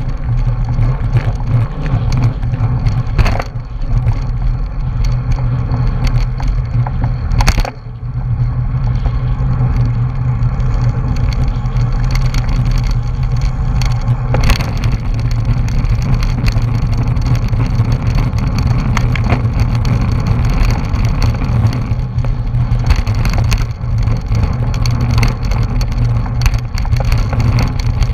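Steady rumble of wind buffeting a bike-mounted action camera's microphone, mixed with road-bike tyre noise, while riding at race speed in a pack of cyclists. A few short sharp knocks are scattered through it.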